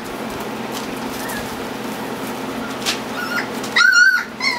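Four-week-old standard poodle puppies playing, giving a few faint high squeaks and then one loud high-pitched yelp about four seconds in, followed by a short squeak.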